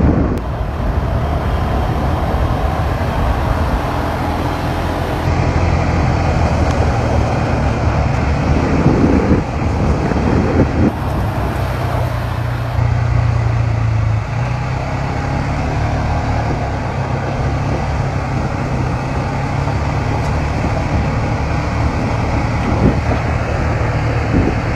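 ATV engine running while under way on a trail: a steady low drone that shifts in pitch a few times as the throttle changes.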